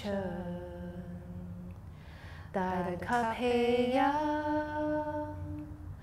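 A woman's voice singing two long, drawn-out held notes, the second stepping up in pitch partway through, as a sing-song deep-breathing cue.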